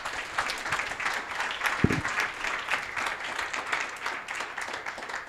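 Audience applauding, a dense patter of many hands clapping that begins to die down near the end. A brief low thump about two seconds in.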